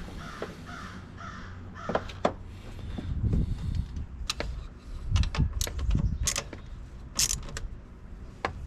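Metal clicks, taps and clanks of hand tools and parts while working at a John Deere 3038e compact tractor's battery, coming in irregular bursts that grow busier after about three seconds.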